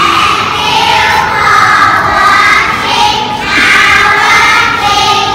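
A group of young children singing together in long held phrases.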